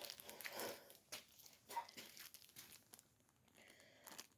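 Faint handling noise: crinkling rustles and scattered light clicks, busiest in the first couple of seconds and thinning out after.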